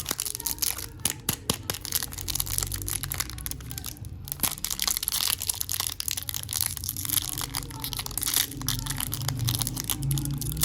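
A chocolate wrapper being crinkled and torn open by hand, a dense, continuous run of crackles.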